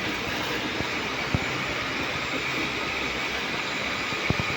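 Workshop machinery running steadily with a faint high whine, and two short knocks, one about a second in and one near the end.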